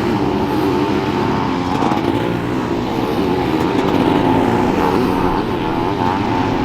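Several motocross racing engines running at once, revving up and down with overlapping, shifting pitches as they ride the track.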